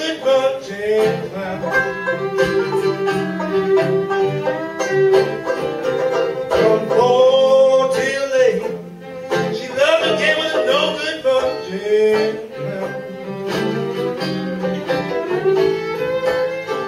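Old-time string band playing an instrumental break live: a fiddle carries the melody over banjo and guitar, with a steady percussive beat.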